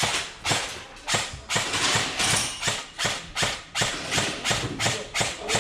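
Airsoft gun firing single shots in quick succession, about three a second, a sharp crack with each shot.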